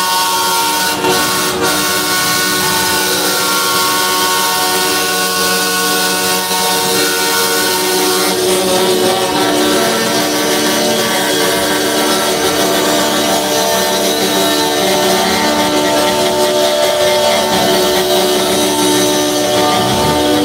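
Several semi-truck air horns blaring together, holding overlapping steady pitches without a break.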